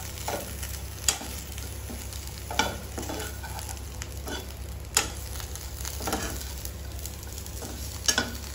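Diced potatoes and grated dry coconut frying in a little oil in a non-stick kadai, sizzling while being stirred with a steel spoon. The spoon scrapes and knocks against the pan four times.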